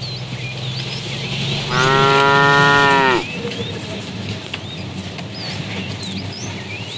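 A cow moos once, a single loud call of about a second and a half starting about two seconds in, its pitch dropping as it ends.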